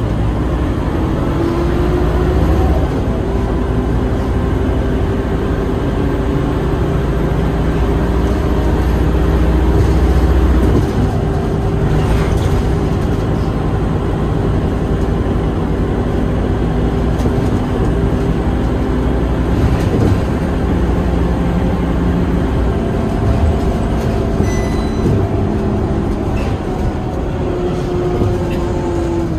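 Scania K230UB bus heard from inside the cabin on the move: its five-cylinder diesel and drivetrain running with a steady whine that climbs in pitch in the first few seconds and then holds. A heavy low rumble eases off about ten seconds in.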